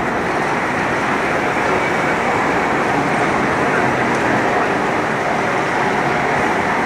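Busy city street ambience: a steady wash of road traffic noise from cars passing on the adjacent street.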